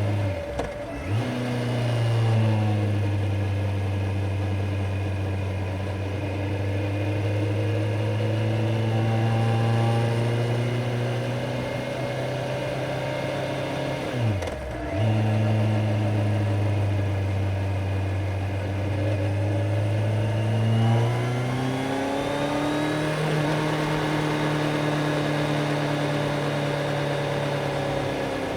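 Kawasaki Z900 inline-four engine running under way at steady revs. The engine note dips sharply and comes straight back twice, about a second in and about fourteen seconds in. Past twenty seconds the revs climb and hold at a higher steady pitch.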